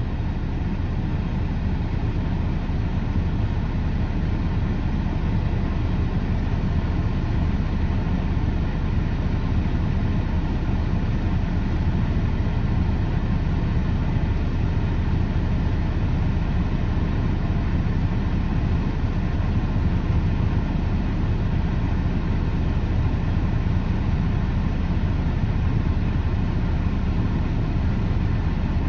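Engine of heavy construction equipment running steadily, its sound strongest in the low end, with no change in pace.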